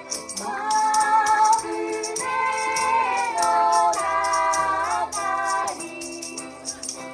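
Live Christmas song: a sung melody with long held notes over ukulele accompaniment, with a hand-shaken rattle ticking out a steady beat.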